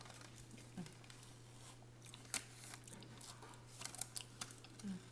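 Close-miked eating sounds from a chicken McNugget being picked up, dipped in a sauce cup and chewed: scattered sharp clicks and soft crinkles, the sharpest a little past two seconds and a cluster near four seconds. A steady low hum runs underneath.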